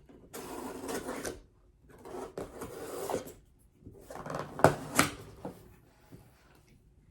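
A shipping box being opened by hand: rustling and scraping of cardboard and packing, with two sharp snaps near the middle.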